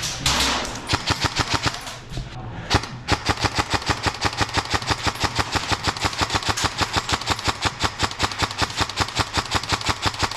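Airsoft electric rifle gunfire: a long, even string of rapid shots at about six a second, after a burst of noisy clatter in the first second or so.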